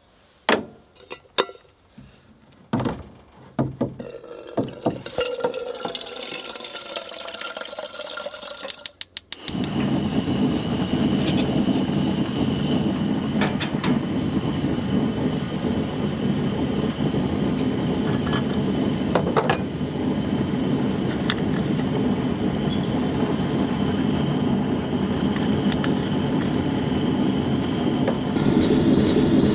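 A few handling knocks, then water running from a jug's spigot into a kettle, its pitch rising as the kettle fills. About nine seconds in, a Coleman two-burner camp stove's igniter clicks rapidly and the burner lights, then burns with a steady rushing noise under the kettle.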